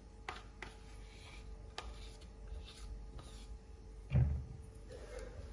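Spoon and plastic mixing bowl being handled: a few light clicks, then a dull thump about four seconds in as a spoonful of mascarpone goes into the bowl.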